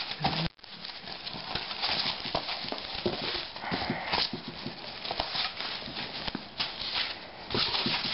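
Bubble wrap and a polystyrene foam packing slab being handled and pulled away from a boxed tablet: a continuous crinkling and rustling of plastic with small crackles and scrapes. The sound cuts out briefly about half a second in.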